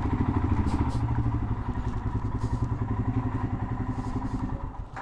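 Royal Enfield Himalayan's single-cylinder engine idling with an even thump, about seven or eight beats a second, then cut off near the end as the bike is switched off.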